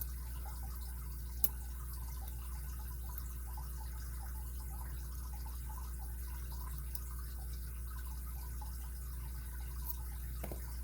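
Faint, scattered small ticks and scrapes of a lock pick working the pin tumblers of a Kryptonite padlock under tension, with one sharper click about a second and a half in, over a steady low electrical hum.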